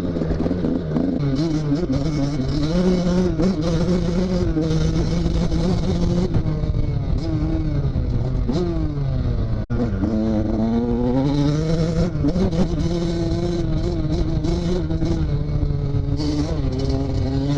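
KTM SX 85's two-stroke single-cylinder engine running under way, its revs rising and falling as the bike is ridden. About ten seconds in the revs drop low and then climb again.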